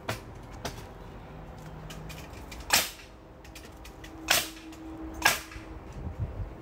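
Nails being driven into new wooden fence rails: three loud, sharp shots about a second or two apart, with a few lighter clicks between.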